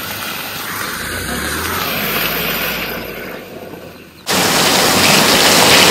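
Suzuki Ertiga rolling slowly through wet mud: the tyres squelch and hiss in the ruts over a faint low engine hum. The sound fades, then a louder steady hiss starts abruptly about four seconds in.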